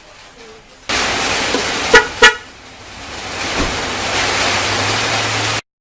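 Newly installed 12V snail-type car horn giving two short toots about a third of a second apart, the loudest sounds here, over a loud steady rushing noise that cuts off abruptly near the end.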